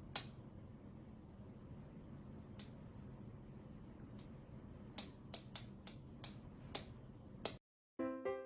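Irregular sharp clicks or taps over a faint low hum, coming more often in the second half. It cuts to silence, then piano music starts near the end.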